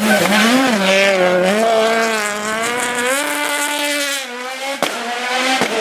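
Rally car engine at full throttle, its pitch rising and falling with the throttle and gear changes, then dropping away and fading as the car goes past. Two sharp cracks near the end.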